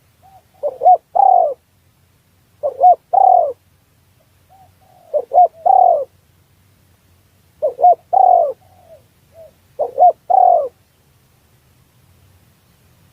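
Spotted dove (tekukur) cooing: five repeated phrases about two to two and a half seconds apart, each a couple of short coos running into a longer falling coo.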